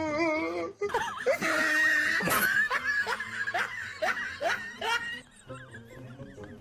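A person laughing hard in a run of short repeated bursts, dying down about five seconds in.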